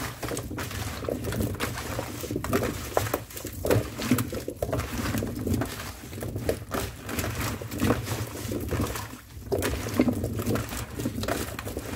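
Salted, cubed Korean radish being tossed by hand in a stainless steel bowl: a continuous rustle and clatter of the cubes tumbling over each other and knocking against the metal.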